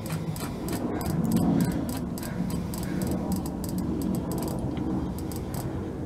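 Rapid, irregular small metallic clicks of a wrench being worked on the nut that holds a switch in a steel switch panel, tightening it down, over a steady low hum.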